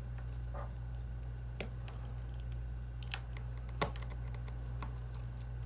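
A few small, sharp clicks from a tri-point (Y-type) precision screwdriver working the tiny screws on an iPhone 7 Plus home button bracket. The loudest click comes about four seconds in, over a steady low hum.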